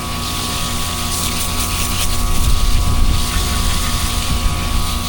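Steady mechanical hum of running air-conditioning equipment, with a low rumble that swells about halfway through and then eases.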